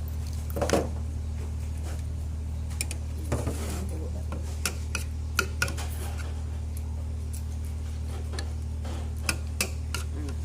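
Scattered light clicks and clinks of dishes and eating utensils during a meal, about a dozen over ten seconds and the strongest about a second in, over a steady low hum.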